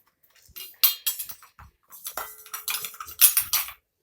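Kitchen utensils and cookware clinking and scraping in a quick run of short knocks, loudest about three seconds in.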